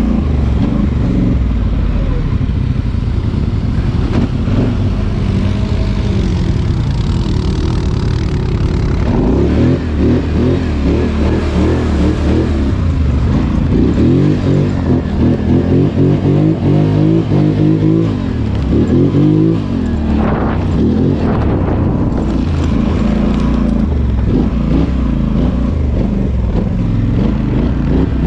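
An ATV engine running under way, its pitch rising and falling as the throttle is worked on and off, with quicker blips through the middle.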